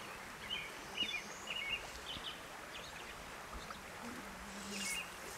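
Creek water running steadily, with short high bird chirps scattered through.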